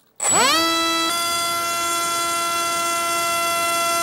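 Electric motor and propeller of a small foam RC jet spinning up quickly to a steady high whine. The pitch steps up slightly about a second in, then holds at a constant throttle.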